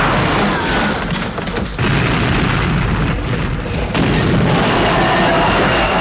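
Film sound effects of a train crash: heavy, continuous crashing and booming as a locomotive smashes through wrecked rail cars. Fresh loud hits come about two seconds in and again about four seconds in. A music score sits underneath.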